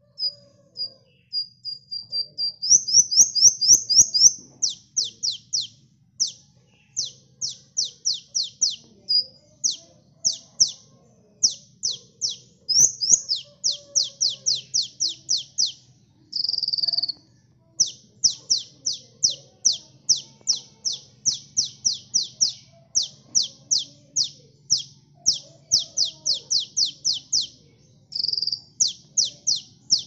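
A male sunbird (kolibri ninja, Van Hasselt's sunbird) singing: fast runs of sharp, high down-slurred chirps, several a second, with a couple of short buzzy notes between the runs. It opens with a few thin single notes.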